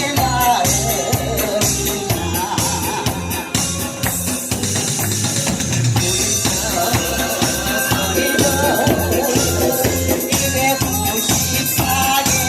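Upbeat song with a steady drum beat, tambourine and singing.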